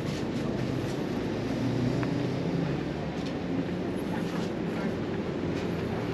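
Steady background din of a covered street market, with a low, even droning hum underneath.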